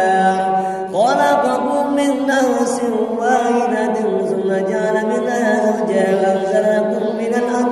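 A man reciting the Qur'an in a melodic tilawah style, holding long ornamented notes. A short breath about a second in, then a new phrase starts high and falls.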